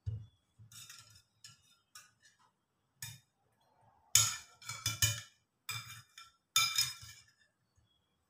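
A steel spoon clinking against a ceramic soup bowl in a run of irregular clinks, loudest from about four seconds in. It opens with a soft knock as the bowl is set down.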